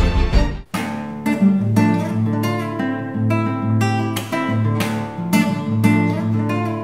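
An electronic intro theme cuts off under a second in. A nylon-string classical guitar then plays an instrumental introduction, plucked notes ringing over a repeating bass note.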